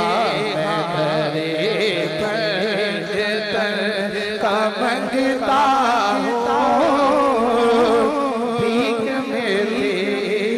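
A man singing a naat into a microphone, drawing out long wavering notes with no clear words.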